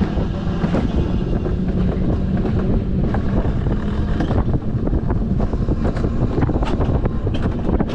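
Mountain coaster sled running down its steel tube track: a steady rolling rumble and hum from the wheels, with many short rattling clicks, thickest in the last couple of seconds, and wind buffeting the microphone.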